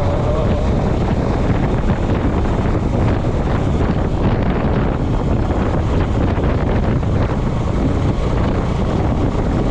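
Wind buffeting the microphone on a moving motorcycle: a steady, loud low rumble of wind noise that masks everything else.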